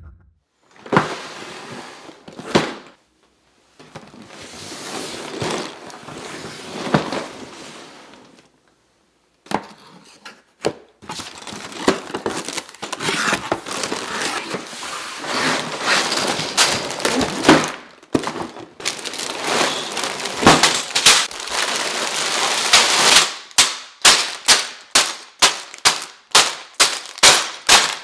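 Cardboard Lego box and its plastic bags of bricks being handled: scraping and rustling of cardboard, then loud dense crinkling of plastic bags full of loose pieces, ending in a quick run of sharp clacks about two or three a second.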